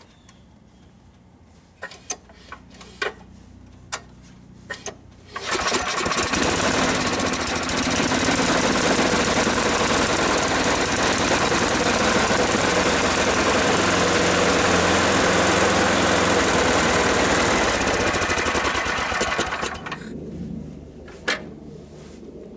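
Gas snowblower engine: a few clicks and knocks, then the engine starts about five seconds in and runs steadily, fading away near the end.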